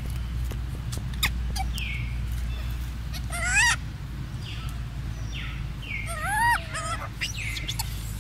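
High animal calls: two louder squealing calls that rise in pitch and bend, about three and a half and six and a half seconds in, among short chirps and clicks, over a steady low hum.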